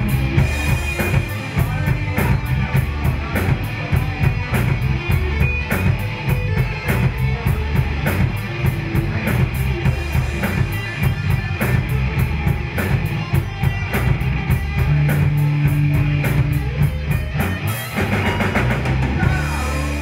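Live rock band playing without vocals: a drum kit and a guitar, loud and raw.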